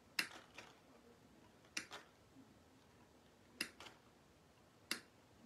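Hand cutters snipping the stems of artificial floral picks apart: four sharp snips spaced about a second and a half apart, most followed by a softer click as the blades reopen.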